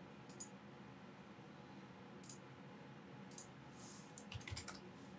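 Faint computer mouse and keyboard clicks: a few single clicks spaced a second or so apart, then a quick run of clicks near the end.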